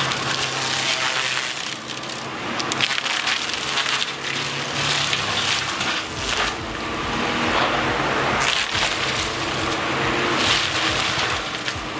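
Excavator disc mulcher grinding brush and small trees: wood cracking and splintering in rapid, irregular snaps over the steady drone of the spinning disc and the excavator.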